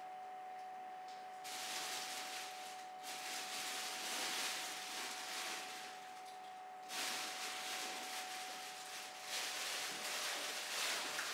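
Free improvised experimental music: one steady held tone runs throughout, under swells of hissing, rustling noise that rise and fall every few seconds.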